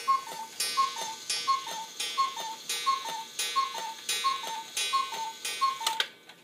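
Weight-driven cuckoo clock striking twelve: its two-note falling cuckoo call repeats about every 0.7 s, each call with a mechanical click, and the run ends about six seconds in with a sharp click.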